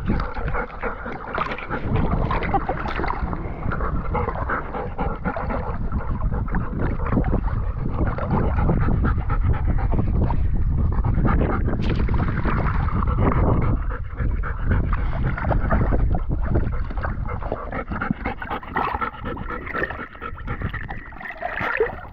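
Wet golden retrievers panting hard after swimming. The owner puts it down to excitement rather than heat.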